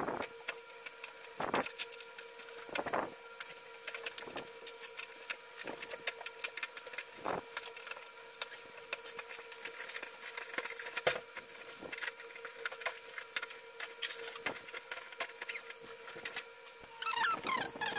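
Plastic wrapping and bubble wrap crinkling and crackling in irregular bursts as a large parcel is unwrapped by hand, with cardboard box flaps being handled. A faint steady whine sits underneath, and a brief warbling sound comes in near the end.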